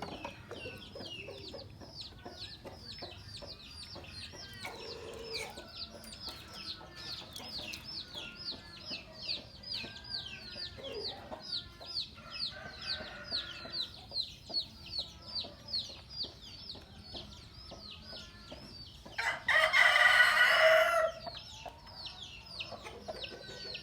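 Chickens: a steady run of short, high, falling peeps at about three a second, and one loud rooster crow lasting about two seconds near the end.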